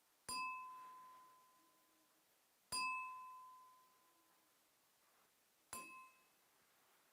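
Three single strikes on a small ringing object, each giving a bright ding at the same pitch. The first two ring out for a second or more; the third, fainter, is damped almost at once.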